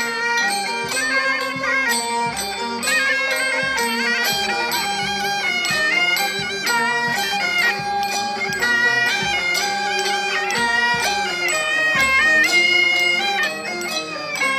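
A band playing traditional music: a shrill, reedy wind melody moving in steps, over steady percussion strikes.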